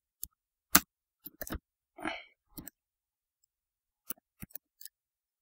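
Irregular sharp clicks of a computer keyboard and mouse, about ten in all, the loudest just under a second in and a cluster of them around four to five seconds in. A short breathy vocal sound comes around two seconds in.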